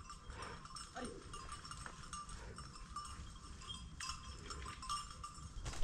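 Small bell tinkling faintly and irregularly, in short ringing notes, over a low rustle.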